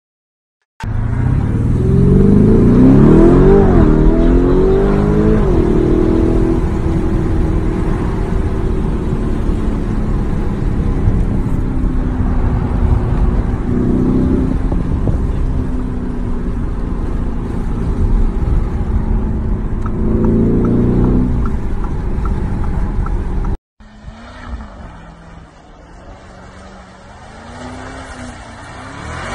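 Lamborghini Urus twin-turbo V8 accelerating hard, heard from inside the cabin: the engine pitch climbs and drops twice in the first few seconds, then holds at steady revs with brief rises. After a sudden cut near the end, the Urus engine is heard more faintly from outside on a snowy road, its pitch wavering and the sound growing louder.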